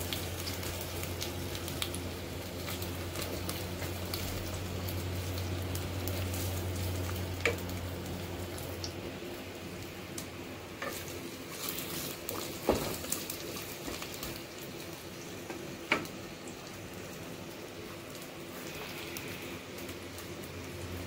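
Shallots and sliced ginger frying in oil in a clay pot with a light, steady crackling sizzle, stirred by a wooden spatula that knocks against the pot a few times.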